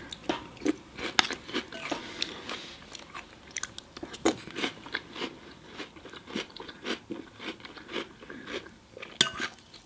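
Close chewing and crunching of Lucky Charms dried marshmallows in milk, in irregular crunches, with a metal spoon scraping and clinking in a glass bowl now and then.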